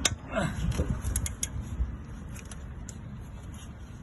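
Scattered metal clicks and clinks of hand tools working on the alternator bolts, with a sharp click at the start and some short squeaks in the first second, over a steady low rumble.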